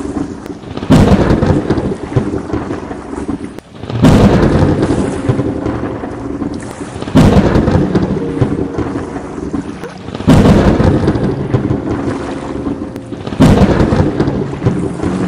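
Thunderstorm: five sudden claps of thunder about three seconds apart, each fading into a rumble, over steady rain.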